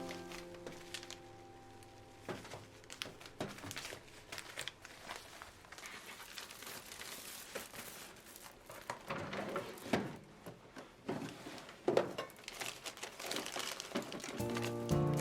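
Crinkling and rustling of handled packaging, with scattered light clicks and taps, a few of them sharper toward the end.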